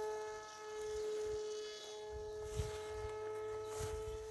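The RC plane's brushless electric motor (A2212 1400kv) spinning an 8x4 propeller, a steady, even-pitched drone from the plane in flight.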